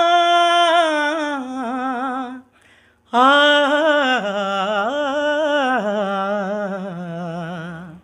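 A man singing unaccompanied: the wordless opening of a ghazal, in two long phrases with wavering ornaments. There is a short breath about two and a half seconds in, and the second phrase settles lower near its end.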